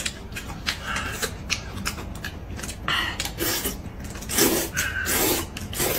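Close-up eating sounds: noodles slurped in several short, noisy bursts spread through the few seconds.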